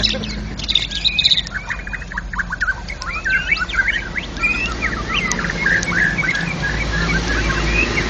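White-rumped shama singing a fast, continuous run of varied chirps and whistled notes.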